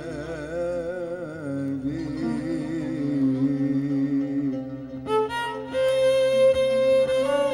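Arabic band music led by a violin playing a wavering melody with heavy vibrato. About two-thirds of the way through, the line turns to steadier held notes.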